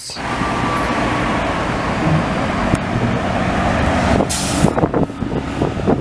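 Real double-decker city bus driving along a road: steady engine and traffic noise, with a short sharp hiss of air about four seconds in.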